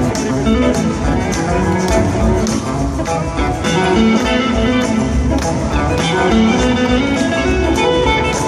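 Live rock band playing, heard from the crowd: electric guitars over drums and keyboards, with a steady beat of drum and cymbal hits.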